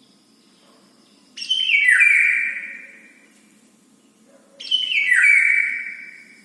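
A bird calling loudly twice, about three seconds apart, each call a quick run of notes stepping down in pitch and then trailing off; the calls are the bird asking for food.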